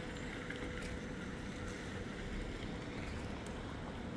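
Steady rush of a flooded creek running high and fast, with wind buffeting the microphone.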